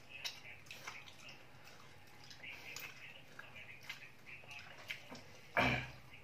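People eating rice by hand from a metal plate and an aluminium rice pot: scattered small clicks and soft wet scraping of fingers and rice, with a single loud thump about five and a half seconds in.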